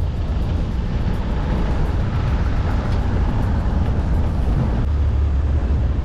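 A moving vehicle: a steady deep rumble with the rush of road and wind noise.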